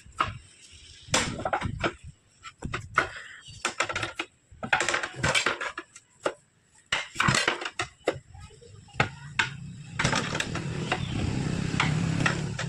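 Repeated metallic clanks and knocks of tools striking and levering against a tractor tyre's steel wheel rim during tyre removal. About ten seconds in, a steady low rumble joins them.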